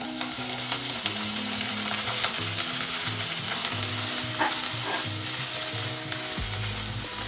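Chopped tomatoes, onions and dried red chillies sizzling in a spoon of desi ghee in a non-stick kadai, stirred with a silicone spatula; a steady frying hiss throughout.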